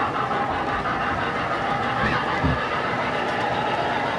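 Model train running on the layout's track, a steady rolling noise, with one low thump about halfway through.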